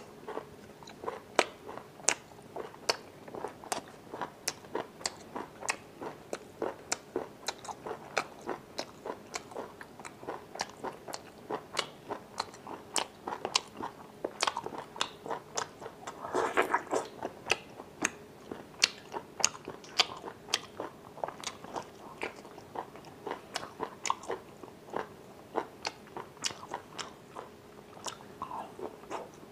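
Close-miked chewing of chewy sea snail meat: a steady run of wet mouth clicks and smacks, a few per second, with one longer, louder sound about halfway through.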